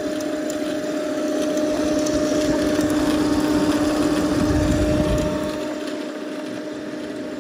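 Large rack-mount network switch's cooling fans running very noisily, a steady two-pitched hum over a whirring hiss, a little louder in the middle. The fans are clogged with built-up gunk, the cause of the noise.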